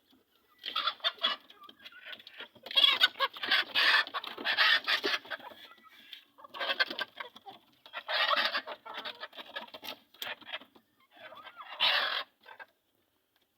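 Native (deshi) chickens clucking in about five bursts, separated by short pauses.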